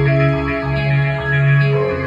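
Instrumental music: held notes in the bass and middle register changing about every half second, with guitar.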